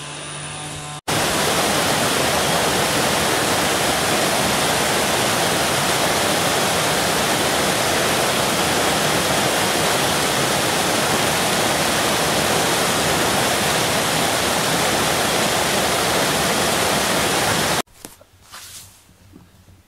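Water pouring over a low rock weir into a churning pool: a steady, loud rush with no pitch. It starts abruptly about a second in and cuts off suddenly near the end.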